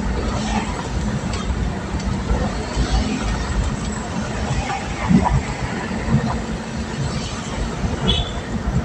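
Motorcycle on the move: a steady engine hum under a dense, uneven low rumble.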